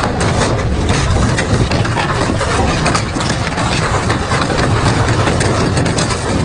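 Double-shaft industrial metal shredder running, a steady heavy drone broken by frequent sharp cracks and crunches of metal being torn.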